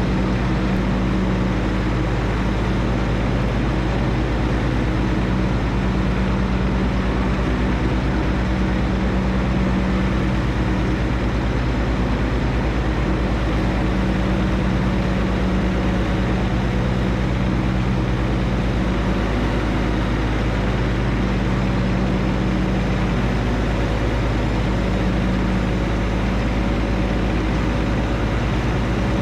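John Deere 1025R compact tractor's three-cylinder diesel engine running steadily at working speed.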